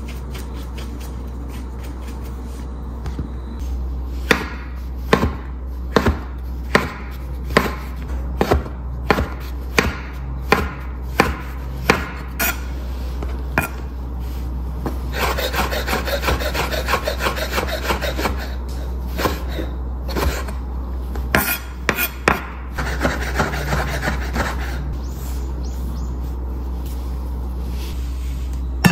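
Kitchen knife chopping mushrooms on a wooden cutting board: a run of sharp knocks, one to two a second, then a few more later. In between are stretches of scraping and rubbing against the board.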